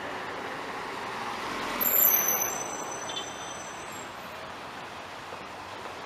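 A minibus passes close by about two seconds in, its noise swelling and fading away, with a brief high squeal as it goes by. A steady rushing noise runs underneath.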